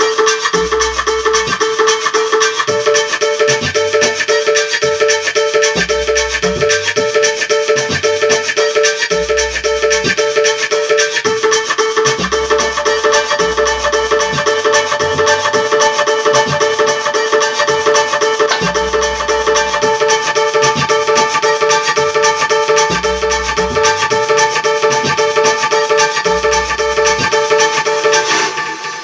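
Instrumental music: a steady held high tone over a fast, even pulse, with low bass notes changing every second or two. It cuts off shortly before the end and dies away.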